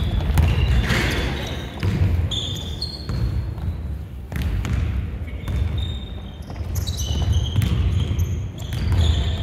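Basketball game on an indoor court: the ball bouncing in repeated low thuds, with short high squeaks and players' voices in the background.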